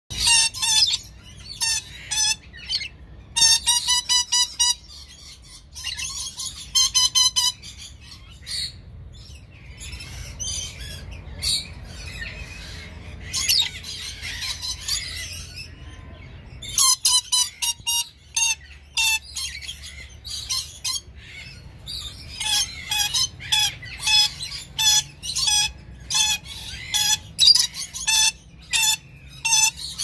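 Red lories calling: runs of short, shrill, harsh shrieks repeated in quick succession. There is a quieter stretch of softer chatter in the middle, then the rapid shrieking picks up again and continues.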